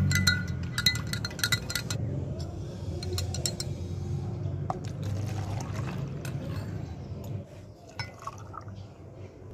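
A metal bar spoon stirring and clinking rapidly against a glass measuring jug for about two seconds, then liquid poured from the jug into a plastic cup, with a few more glass clinks near the end.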